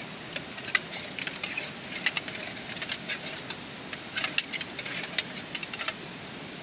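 Metal spoon clinking and scraping against the inside of a metal camping pot while stirring hot coffee: quick irregular clicks that stop about six seconds in, over a steady background hiss.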